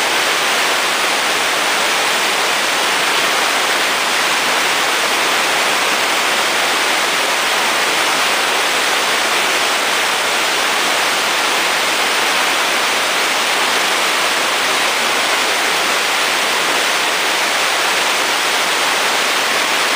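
A steady, even hiss that holds at the same level throughout, with no other distinct sounds.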